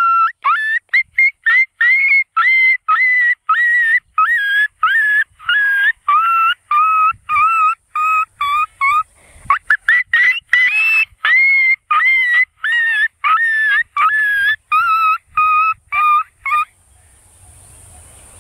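A man imitating a dog with his voice: a long fast run of high-pitched yapping barks, about two a second, stopping about sixteen seconds in.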